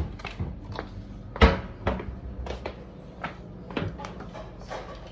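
Kitchen pantry cupboard door being opened and things inside knocked about while someone rummages: a string of knocks and clatters, the loudest about a second and a half in.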